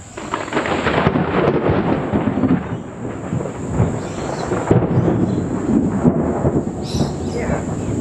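Thunder from an overhead storm, breaking in suddenly and rolling on with uneven swells.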